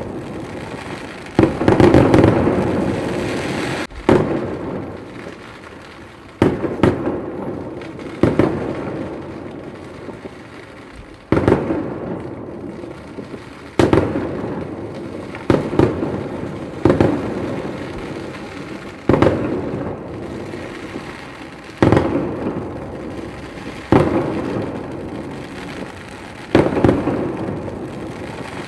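Aerial firework shells bursting in a display: about a dozen loud bangs, one every two seconds or so, each trailing off over a second or two before the next.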